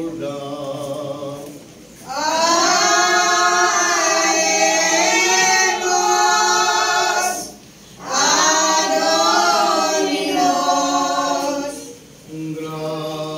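Sung liturgy in call and response: a single lower voice chants a line, then a choir answers loudly in two long sung phrases with a short break between, and the lower voice comes back near the end.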